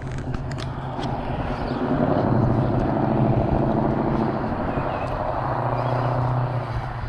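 A car engine running steadily with a low drone, growing a little louder about two seconds in and easing off near the end.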